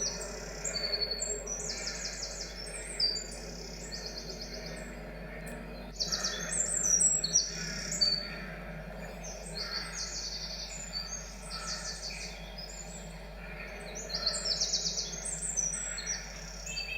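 A songbird singing: phrases of fast, high trills and chirps, with short pauses between phrases.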